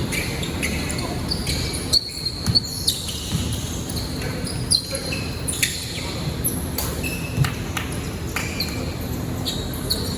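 Basketball game on an indoor court: many short, high sneaker squeaks on the floor and a few sharp knocks of the ball bouncing, over a background of voices.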